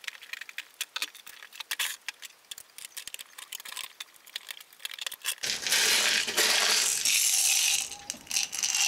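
Hard 3D-printed plastic clock parts clicking and clacking sharply as they are handled and fitted together, then, about five seconds in, a much louder, continuous plastic rattle.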